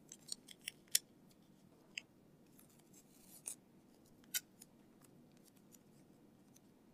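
Gray masking tape being pulled off its roll and broken into short pieces: a quick run of sharp snips and clicks in the first second, then a few scattered snips and short crackles.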